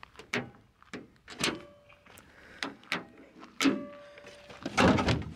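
Quick-release aero catch on a car bonnet being handled: a series of sharp clicks and taps, some with a short metallic ring, then a louder clatter near the end.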